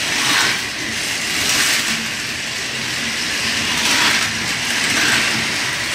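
Several battery-powered TrackMaster motorized toy trains running together on plastic track: a steady whirring and rattling of small motors and wheels that grows a little louder and softer several times.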